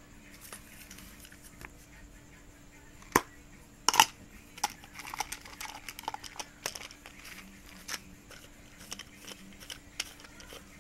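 A sharp click about three seconds in and a louder double click about a second later, followed by a run of small irregular clicks and crinkling.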